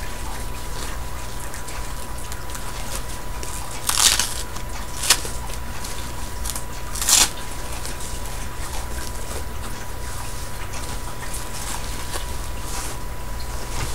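Disposable diaper crinkling and rustling as it is unfolded and fastened, with three short, louder rustles about four, five and seven seconds in, over a steady low hum.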